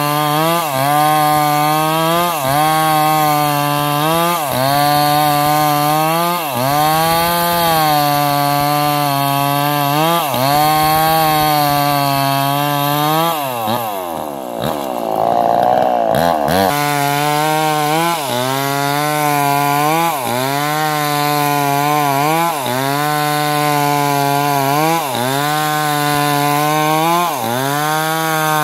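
Chainsaw running at high revs, its note dipping and recovering about every one and a half seconds. Around the middle the engine note falls away for a few seconds, then snaps back to full speed.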